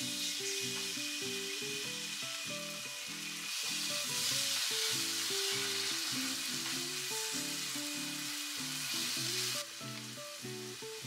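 Kimchi sizzling in hot oil in a pot as it is stirred and spread with a spatula. The sizzle grows louder a few seconds in and eases near the end. Light background music plays underneath.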